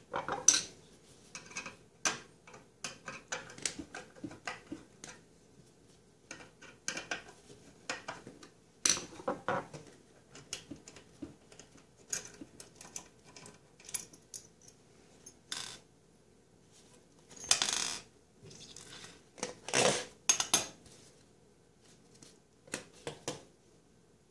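Scattered clicks, taps and rattles of plastic and metal plumbing parts being handled and set down on a granite countertop: a corrugated flexible drain hose worked at a garbage disposal's outlet, rubber washers and small screws. Past the middle come two longer scraping sounds.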